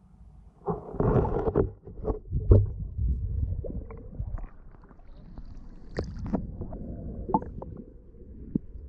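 Muffled underwater water movement heard through an action camera's waterproof housing: a low rumbling wash with a surge about a second in, and scattered sharp clicks and knocks.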